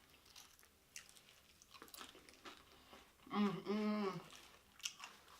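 Soft chewing and mouth clicks from eating nacho chips. About three seconds in comes a hummed "mmm" lasting about a second.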